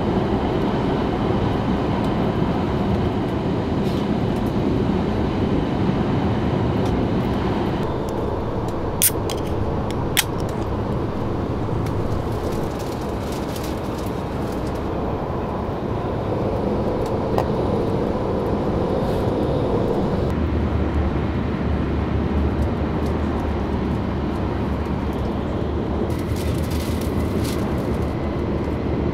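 Steady rumble of a moving train heard from inside the passenger carriage. Two sharp clicks come about a second apart, roughly a third of the way through.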